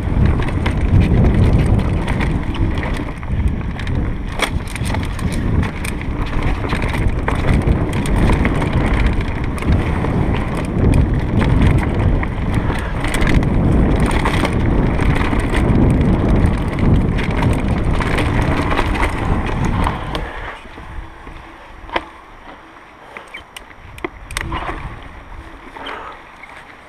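Mountain bike descending dirt singletrack at speed: wind buffeting the microphone and the tyres and frame rattling over the trail make a loud, rough rumble. About 20 seconds in it drops much quieter as the bike slows, leaving scattered clicks and knocks.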